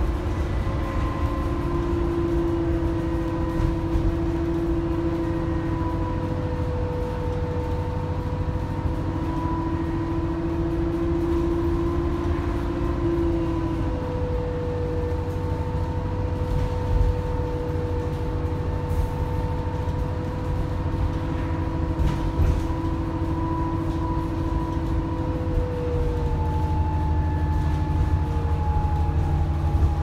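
Alexander Dennis Enviro 400 double-decker bus heard from inside while under way: a steady low diesel rumble with a high turbo whine on top, its pitch shifting slightly a few times.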